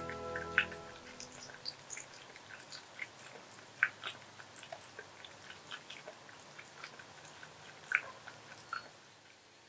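A cat chewing its food: a run of small, irregular, crisp clicks and crunches, with a few louder ones, stopping about nine seconds in.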